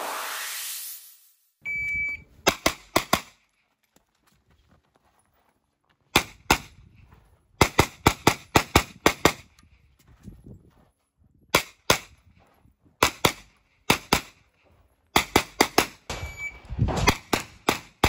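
Shot timer's start beep, then a stage run of pistol-caliber carbine gunshots, mostly in quick pairs, fired in strings with short pauses between them for about sixteen seconds. A whoosh transition effect fades out at the very start.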